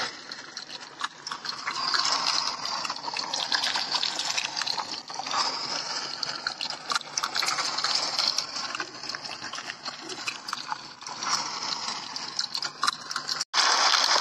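Rushing water, a steady noisy wash that swells and eases every couple of seconds; it cuts out for a moment near the end and comes back louder.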